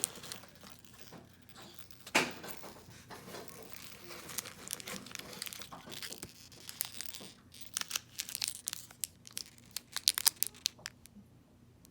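Packaging being handled and unwrapped by hand: crinkling and tearing, with a sharp click about two seconds in and a dense run of crackling in the second half.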